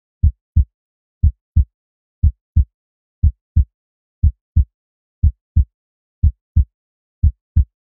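Heartbeat sound effect: low lub-dub double thumps, the second a third of a second after the first, repeating steadily about once a second, eight beats in all.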